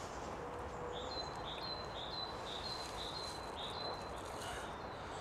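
A small bird singing a run of about seven short, high notes, each a lower note stepping up to a higher one, at a little under two a second, over a steady hiss.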